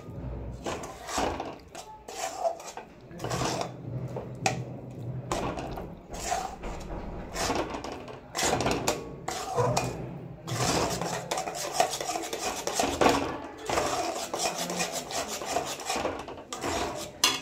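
Metal spatula scraping and stirring a chhena-and-sugar mix around a stainless steel kadai over the gas, in a run of irregular rasping strokes that come closer together in the second half. This is the mix being cooked down and stirred until it turns sticky.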